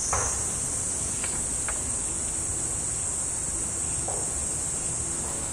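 Steady, high-pitched chorus of insects, with a few faint ticks.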